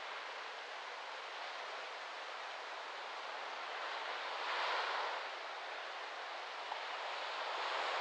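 Small waves lapping and washing up on a sandy beach, in a steady wash of surf with a breeze in palm fronds. One wave comes in louder a little after halfway, and another near the end.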